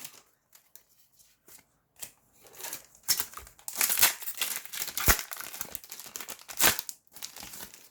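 Yu-Gi-Oh! booster pack wrappers crinkling and being torn open by hand. It starts with a couple of soft rustles, then from about two seconds in comes a run of dense crinkling with several sharp, loud rips.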